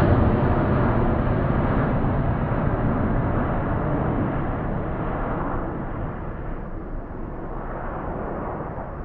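Twin jet engines of an Airbus A330 airliner climbing out after takeoff: a steady rushing engine noise that fades gradually as the aircraft flies away.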